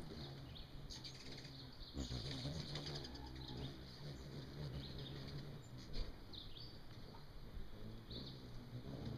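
Songbirds chirping with short calls against a steady low outdoor rumble, while a hummingbird's wings whir as it flies in and hovers at a feeder.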